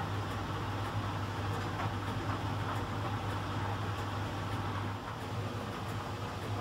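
Miele Professional PT 7186 XL commercial tumble dryer running its cool-down with the heater off: the drum turns a load of cloth rags while the blower runs, giving a steady hum and airy whoosh with faint taps of tumbling cloth.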